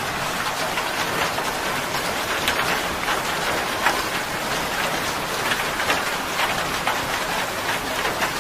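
Heavy monsoon downpour falling steadily, with scattered sharper drops striking close by.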